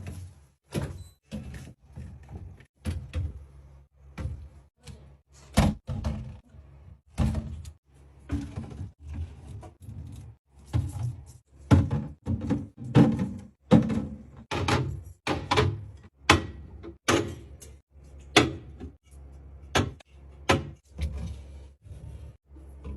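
Irregular knocks, clunks and clacks, roughly one or two a second and varying in loudness, of food containers and items being handled and set down on refrigerator shelves and drawers.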